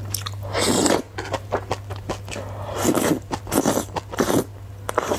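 Close-miked slurping of chili-sauced noodles, three long slurps with wet chewing and mouth clicks between them.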